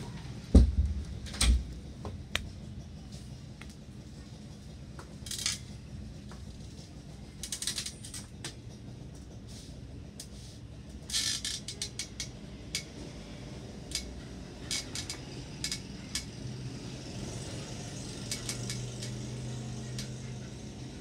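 Two heavy thumps near the start, then scattered light clicks, clinks and short clatters of small household objects being handled out of view, over a steady low room hum.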